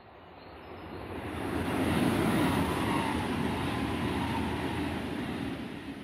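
Deutsche Bahn ICE high-speed train passing by: a rushing noise that swells over the first two seconds, holds, and fades near the end, with a faint whine falling in pitch as it goes past.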